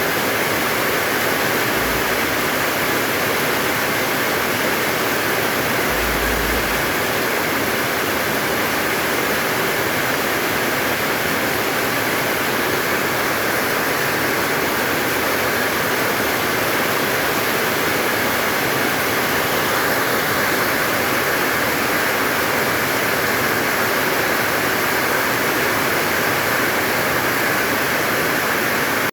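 Heavy rain pouring down in a steady, unbroken hiss, then cutting off abruptly at the end.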